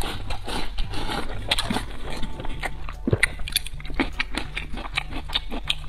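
Close-miked eating: wet chewing and lip-smacking with many sharp mouth clicks, as a man eats rice from a bowl with chopsticks.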